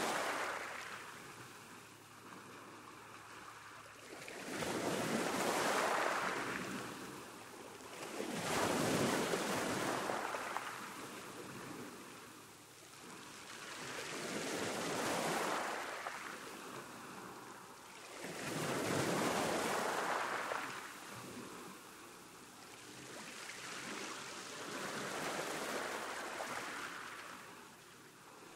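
Sea waves breaking and washing ashore, one after another. Each one swells up and falls away, about every four to six seconds.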